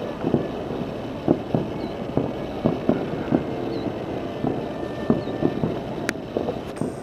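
New Year's fireworks going off from the Space Needle: a quick, irregular string of bangs, about two a second.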